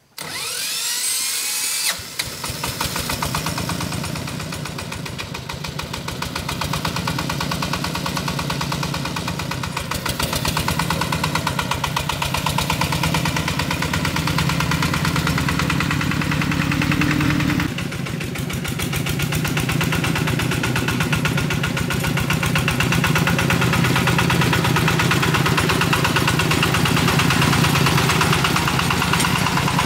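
Single-cylinder diesel engine of a small articulated farm truck running. It speeds up over the first two seconds, then settles into a steady chugging as the truck drives.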